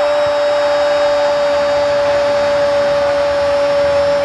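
Commentator's long, held goal cry on one steady pitch over the roar of the stadium crowd.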